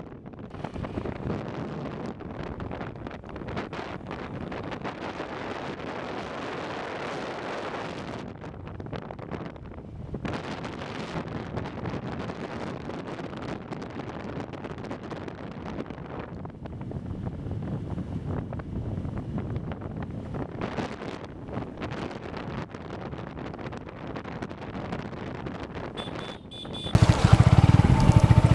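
Wind buffeting the microphone on a moving motorbike, with engine and road noise underneath, rising and falling in gusts. Near the end the sound cuts abruptly to a much louder, steadier noise.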